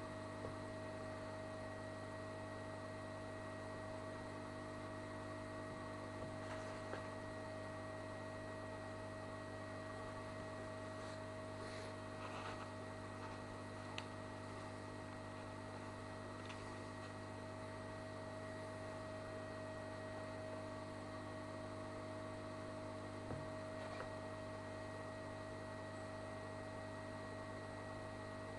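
Steady electrical mains hum with a few faint, brief clicks.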